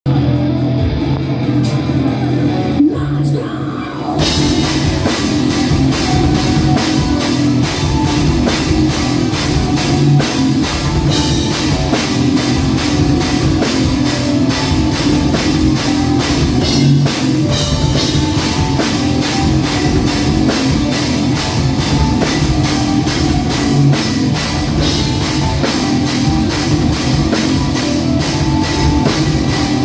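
Heavy metal band playing live, with a drum kit. A thinner, quieter intro gives way about four seconds in to the full band at full volume, with dense, steady drumming.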